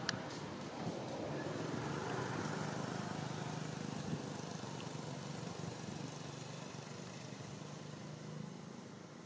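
A steady low engine hum under a haze of background noise, fading slowly toward the end, with a single click right at the start.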